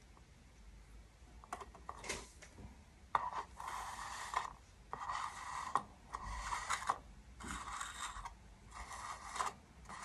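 A few light clicks, then about five short scraping strokes of something hard across a hard surface, each under a second long, with short gaps between them.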